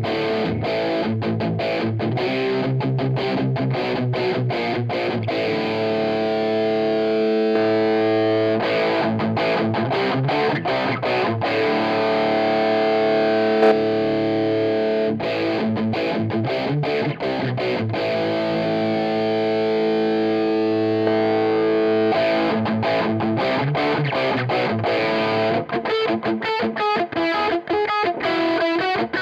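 Electric guitar through an MXR DD25 Dookie Drive overdrive pedal, its blend knob at full overdrive, recorded direct through a Two Notes Cab M cabinet simulator. Distorted chords are strummed in choppy rhythm, with chords left ringing for a few seconds at a time, and quick stop-start chugging near the end.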